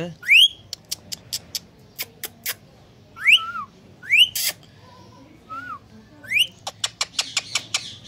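Indian ringneck parrot giving about four short rising whistled squawks, with runs of sharp clicks in between.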